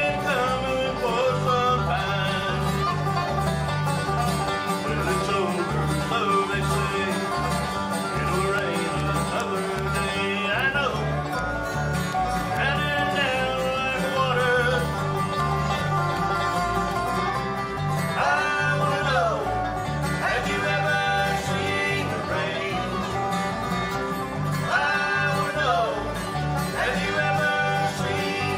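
Bluegrass band playing live: banjo picking over strummed acoustic guitars and a pulsing electric bass, with sliding notes running through the tune.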